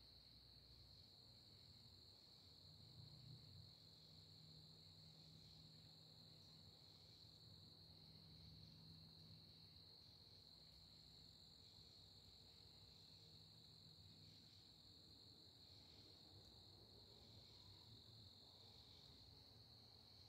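Faint, steady chorus of crickets: a high-pitched trill that never lets up, with a fainter, higher insect trill cutting in and out.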